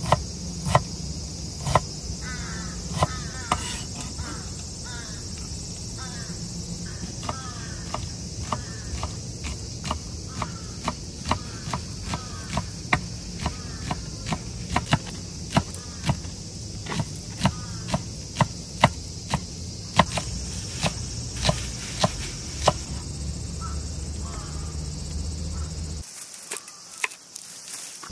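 Kitchen knife chopping green onions on a wooden cutting board: a run of quick, sharp knocks, sparse at first and then steady at about two a second. A steady high insect chorus, like crickets, runs underneath.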